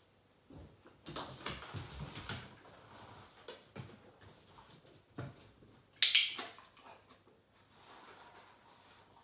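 German shorthaired pointers' paws and claws moving on a mat and wooden floor: scuffling steps and scattered taps, with one sharp knock about six seconds in.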